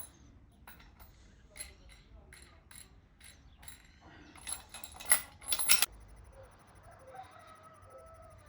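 Sharp clicks and dry rustling from handwork on a broom. They come scattered at first, then bunch into a louder crackling burst around five seconds in.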